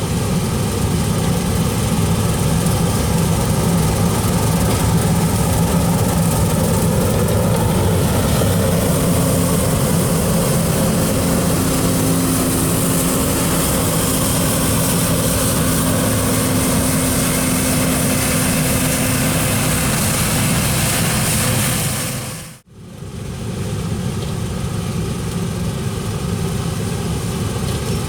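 Heavy farm machinery engine running steadily under load, with a faint steady hum entering partway through; the sound drops out abruptly for a moment about three-quarters of the way in and comes straight back.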